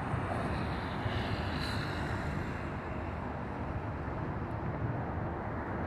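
Steady outdoor rumble of wind buffeting the microphone, mixed with distant road traffic.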